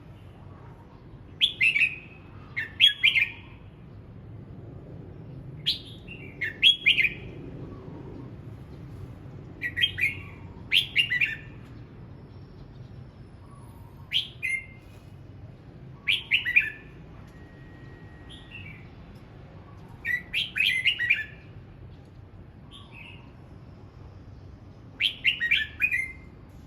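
Red-whiskered bulbul singing short, bright whistled phrases, repeated about every four seconds, each phrase often made of two or three quick notes.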